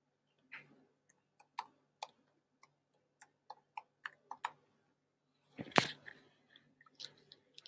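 Faint clicks of typing on a computer keyboard, about a dozen separate keystrokes, with one louder click about six seconds in.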